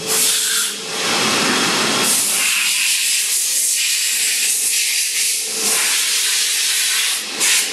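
Okuma & Howa ACT 2SP-2 twin-spindle CNC lathe running a cycle with its doors closed, a loud steady hiss coming from inside its enclosure, dipping briefly a few times.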